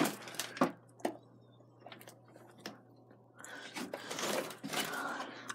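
A few scattered light clicks and knocks, then about two seconds of uneven crunching and scraping: footsteps shifting on broken plaster and drywall debris. A steady low hum runs underneath.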